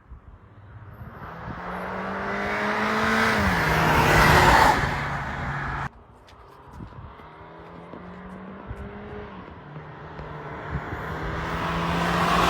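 Volkswagen Passat CC accelerating hard, its engine note growing steadily louder, with a drop in pitch about three and a half seconds in. The sound cuts off abruptly about six seconds in, and a second acceleration builds up to the end.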